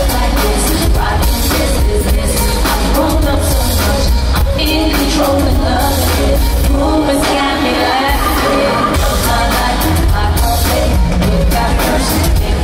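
Live pop concert music heard from within an arena audience: a woman sings lead over a loud band and backing track with heavy bass.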